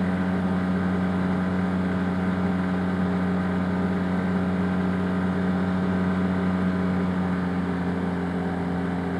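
Arctic Cat Wildcat Trail UTV engine running at a steady cruising speed, an even drone that holds the same pitch throughout.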